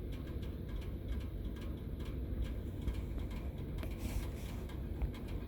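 Faint small clicks and taps from soldering work over a low steady hum, with a short hiss about four seconds in.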